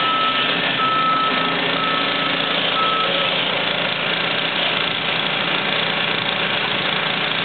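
Cat hydraulic excavator's diesel engine running steadily as it works a house roof, with a reversing alarm beeping about once a second that stops about three seconds in.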